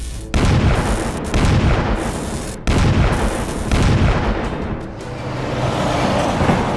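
Cartoon explosion sound effects over music: four sudden booming hits about a second apart, each dying away, then a swell that rises near the end.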